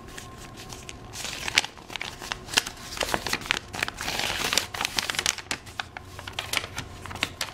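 A folded paper instruction manual being unfolded by hand: paper crinkling and rustling with many irregular crisp crackles, busiest in the middle.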